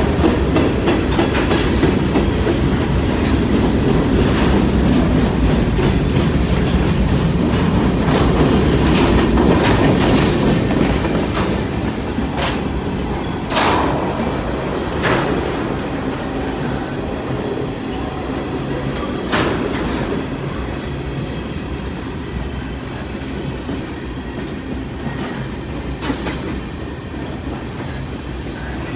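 Freight cars of a long CN freight train rolling past: a steady rumble and clatter of steel wheels on rail that eases off after about ten seconds, with a few sharp metallic clanks.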